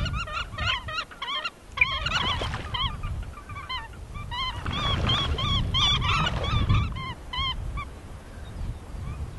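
Hooded grebes calling in quick series of short notes that rise and fall in pitch, about three a second, with water splashing under them. It is a squabble over a floating nest, the owners defending it against other grebes that try to take it over. The calls thin out and fade near the end.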